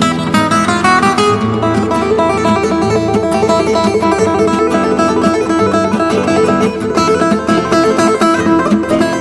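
Background music: fast plucked and strummed acoustic guitar.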